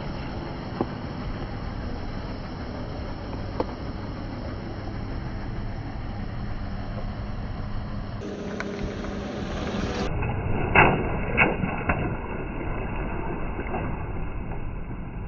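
Steady low rumble of a car, with a few scattered sharp pops and crackles of water beads and toys being crushed under its tyre; two louder pops come about eleven seconds in.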